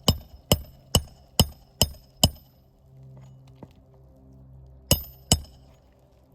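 Hammer striking a metal roofing tool while working it under asphalt shingles: six ringing metallic blows at a steady pace, then two more a few seconds later.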